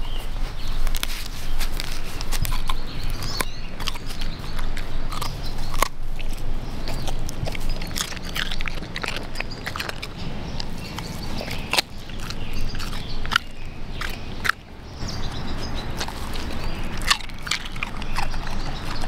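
An animal biting and chewing a fresh raw radish, with many short, sharp crunches.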